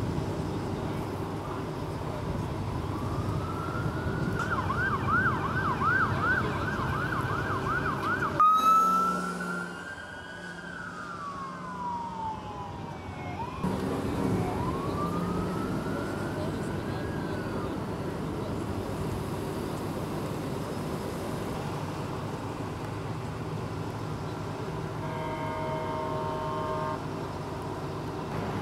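Emergency vehicle siren: a wail rising to a high pitch, then a fast yelp of about two to three cycles a second that cuts off suddenly, followed by slower falling and rising wails. A steady engine hum runs underneath, and a steady multi-note tone sounds for about two seconds near the end.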